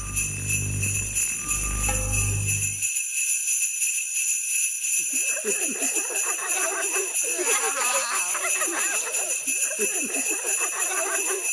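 Jingle bells shaking steadily as a sound effect, used in place of a clock's ticking. A low hum under them stops about three seconds in, and a busy run of short warbling sounds joins about five seconds in.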